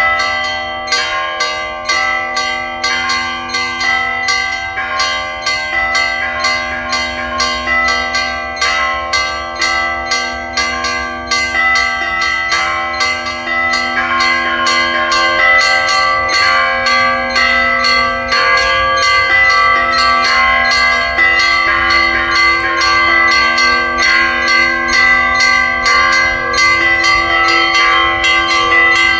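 Church bells pealing: small bells struck in quick succession over the lingering hum of larger, deeper bells, growing slightly louder about halfway through.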